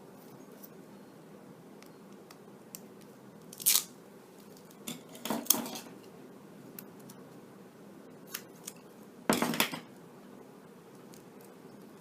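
Scissors snipping and crinkling black electrical tape wrapped on an Ethernet cable, in three short bursts a few seconds apart.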